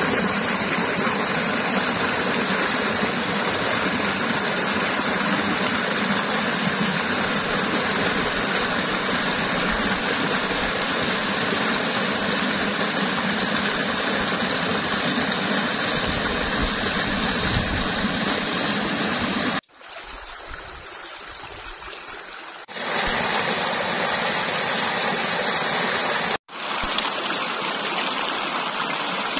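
Hot-spring stream rushing and splashing over boulders in small cascades, a steady rush of water. It falls away to a much fainter rush for about three seconds past the middle, and cuts out for a moment once more later on.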